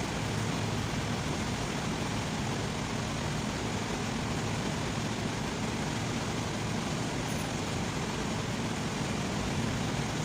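Steady low rumble with an even hiss, like traffic or vehicle noise in the background, unchanging throughout.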